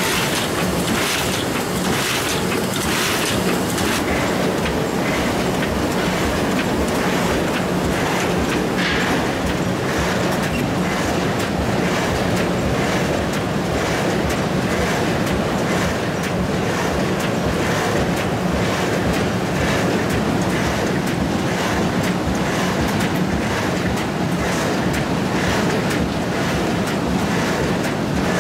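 Huatai HT1500P automatic die cutting and stripping machine running: a loud, steady mechanical clatter with a regular beat of clacks and a low hum underneath as it feeds, cuts and strips sheets of board.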